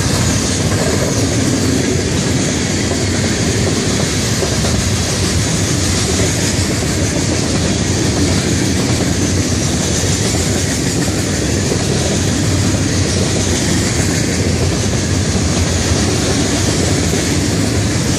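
A Florida East Coast Railway freight train's hopper cars, then container well cars, roll steadily past close by: a continuous clatter and rumble of steel wheels on the rails.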